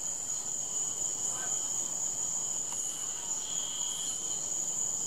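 Crickets singing in a steady chorus: a continuous high trill, with a second, lower trill that swells and fades.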